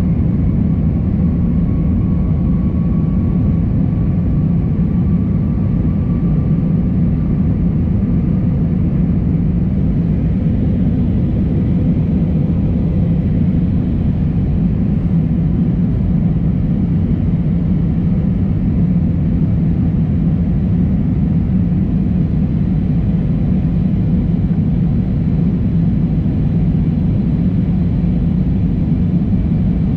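Steady low drone inside the passenger cabin of an Airbus A320-232 jet airliner, from its IAE V2500 engines and the air around the fuselage. A faint high whine sits over it for the first several seconds and then fades.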